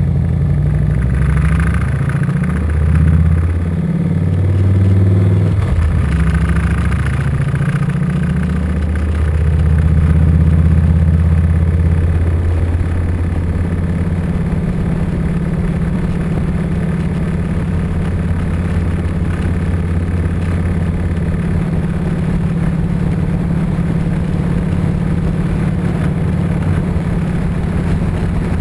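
Harley-Davidson touring motorcycle's V-twin engine pulling away and shifting up, its pitch climbing and dropping several times in the first eight seconds or so. It then runs steadily at cruising speed.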